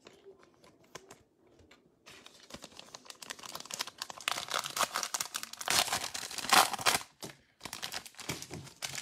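A foil-wrapped trading-card pack being torn open by hand, its wrapper crinkling and tearing. The sound starts about two seconds in, after a few faint clicks, and is loudest in the middle, with a short pause before more crinkling near the end.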